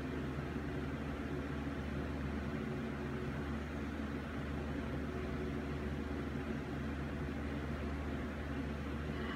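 Steady low hum and hiss of room noise, with no music or speech.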